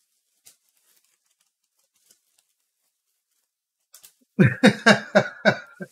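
A man laughing in a quick run of about six short bursts near the end, after a few seconds of near quiet with a couple of faint clicks.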